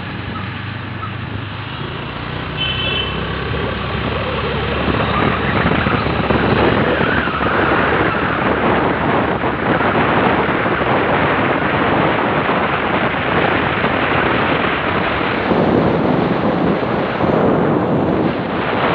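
A two-wheeler riding along a road: its engine hums low under a rush of wind and road noise. The rush grows louder over the first several seconds as it picks up speed, then holds steady.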